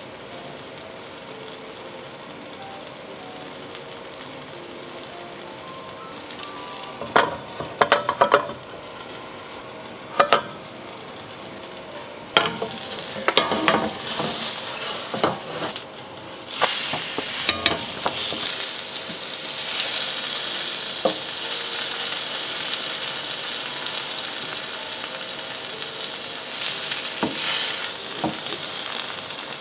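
Okonomiyaki with pork belly sizzling in a nonstick grill pan over a gas flame, with a wooden spatula clicking and scraping against the pan. About halfway through, once the pancake is turned over, the sizzling gets louder and steadier.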